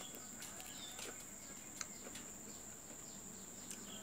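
Steady high-pitched insect chirring in the background, with a few faint short chirps and scattered small clicks.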